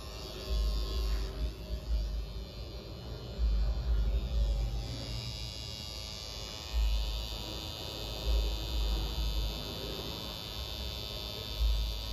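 Tattoo machine buzzing steadily as its needle works red ink into the skin, with several low rumbles coming and going.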